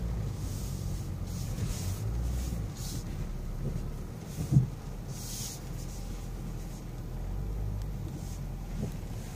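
Low, steady rumble of a BMW X6 driving slowly over muddy off-road ruts, heard from inside the cabin, with a single sharp thump about four and a half seconds in.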